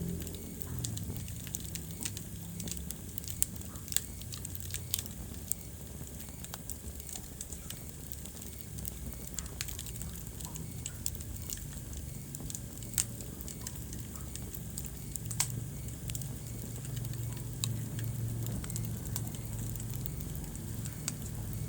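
Wood fire burning in a fireplace: crackling, with sharp pops at irregular moments, over a steady low rumble and hiss.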